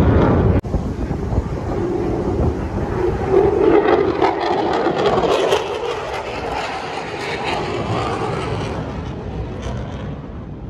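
Engine noise of an aircraft flying past, swelling to a peak about halfway through and then slowly fading.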